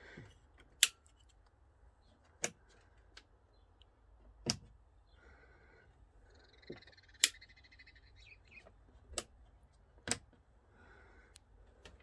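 Rocker switch on a boat's 12 V fuse and switch panel clicked six times at uneven intervals, flicked on and off while the cabin lights it controls fail to come on.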